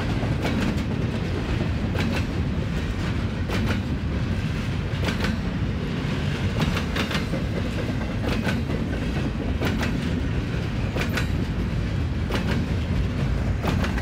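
Double-stack intermodal freight train rolling past with a steady rumble, and clusters of sharp wheel clacks about every second and a half as each car's wheel sets cross the rail diamonds.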